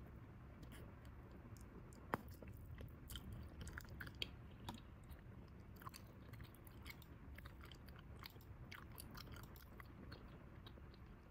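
Bubble gum being chewed quietly and close to the microphone: soft, irregular wet clicks and smacks of the mouth, with one sharper click about two seconds in.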